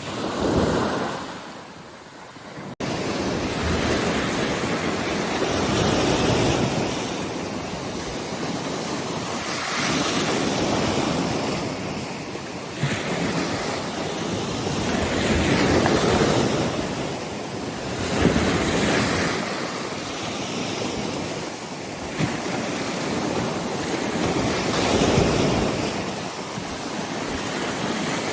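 Waves breaking on the bay shore in strong wind, surging and easing every few seconds, with wind noise on the microphone.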